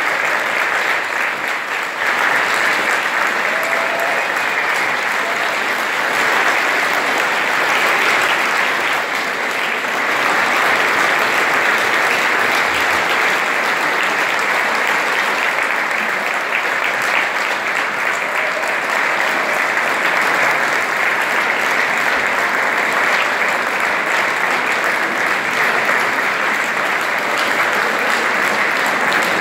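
Large audience applauding steadily, the clapping growing louder about two seconds in.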